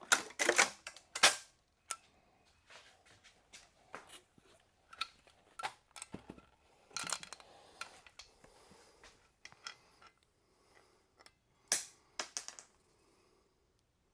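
Sharp metal clinks and clatters of hand tools and parts being handled while a VW 1.8 TSI engine is taken apart, with a quick cluster of loud clanks at the start, another group about seven seconds in and more near twelve seconds.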